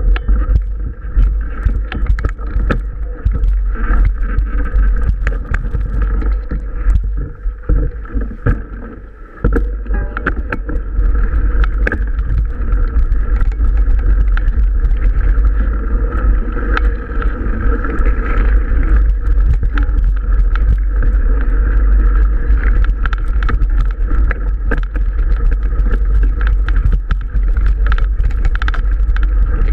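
Wind rushing over the microphone of a camera on a moving mountain bike, with many sharp rattles and knocks from the bike jolting over a rough dirt track. The wind rumble eases briefly about eight to nine seconds in, then comes back.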